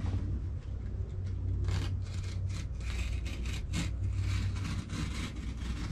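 A blade cutting through the tent's stove-jack panel in short, irregular rasping strokes as it follows the drawn circle for the stovepipe hole.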